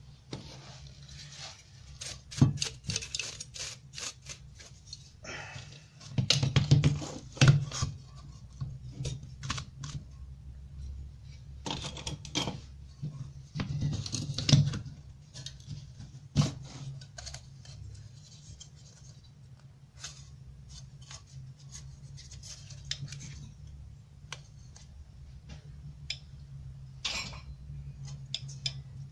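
Sheet-metal brackets being handled and set down on a wooden workbench: irregular clicks, scrapes and knocks, busiest in the first half, over a steady low hum.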